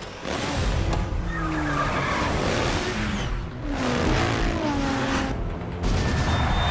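Vehicle engines and tyre squeals from a chase, with several falling engine notes over a loud, steady road noise, and light music underneath.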